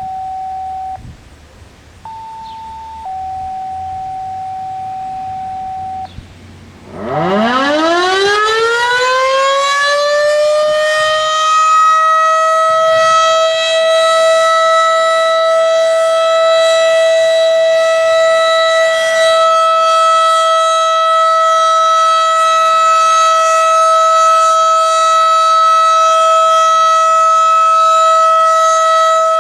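W.S. Darley Model 5 outdoor warning siren winding up for its test. It rises steeply in pitch over about five seconds, then holds one steady, loud wail with many overtones. Before it starts there are a few seconds of steady electronic tones: one pitch, a higher one for about a second, then the first pitch again.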